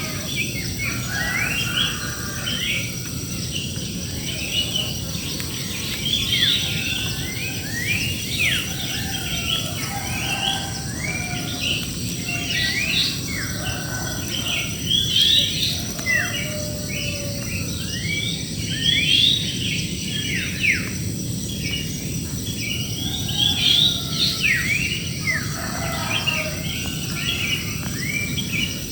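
A dense chorus of many birds chirping and calling together in a large tree: short overlapping notes sweeping up and down, with no pause. A steady high insect drone runs beneath.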